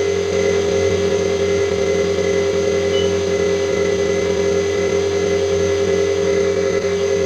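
CNC milling machine running with a steady, unbroken hum and a strong held tone that does not change.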